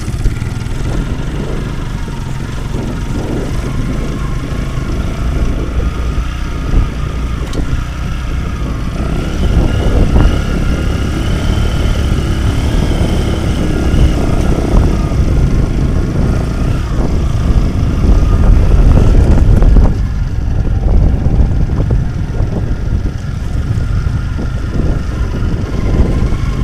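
Honda Mega Pro single-cylinder four-stroke motorcycle engine running at low speed over a rough, freshly cut dirt road, with rumble and knocks from the bumpy ground. It gets louder about ten seconds in and again around eighteen seconds.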